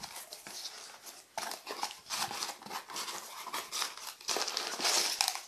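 Crumpled packing paper rustling and crinkling as hands rummage through it in a cardboard box. It comes in irregular bursts and is loudest near the end.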